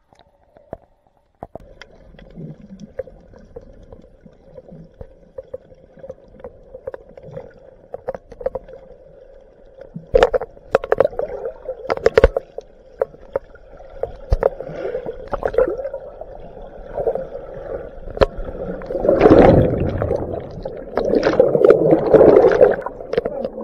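Rushing tidal rapid water heard through a camera's waterproof housing at and below the surface: muffled gurgling and bubbling, with scattered sharp knocks and clicks against the housing. It grows louder and rougher near the end as the current gets stronger.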